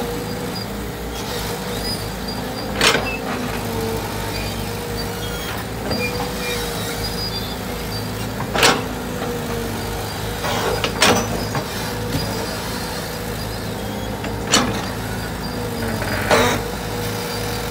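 Tracked excavator's diesel engine running steadily with a held whine as its bucket mixes mortar in a steel box, with five sharp knocks of the bucket against the box spread through the stretch.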